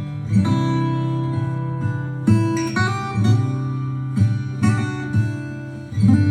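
Acoustic guitar music with strummed chords over a heavy bass, played back through an Xdobo Sinoband Challenger 2020 Bluetooth speaker. New chords come in about half a second in, after about two seconds, and near the end.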